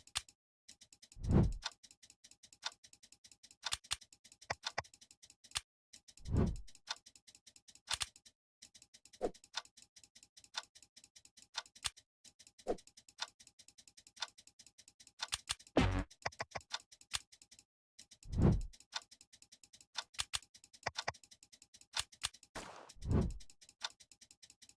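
Irregular clicking and ticking, with five louder dull thumps spread through it.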